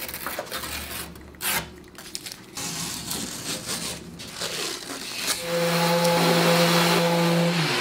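Blue painter's tape being pulled off the roll and laid along a wooden panel edge: irregular ripping and crackling. About five seconds in, a louder steady hum with a low drone starts and keeps going.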